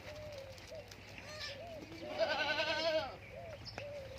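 A Sirohi goat gives one quavering bleat, lasting about a second, starting about two seconds in.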